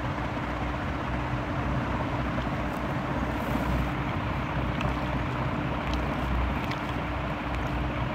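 Steady background noise, a continuous hiss-like rumble with a constant low hum running through it.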